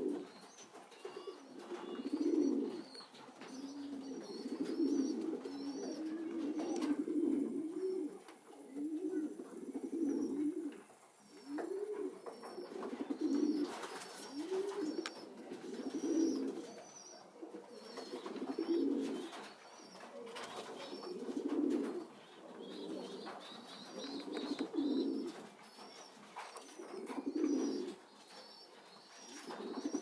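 Racing pigeon cooing, low phrases repeated every two to three seconds, with faint high chirping in the background.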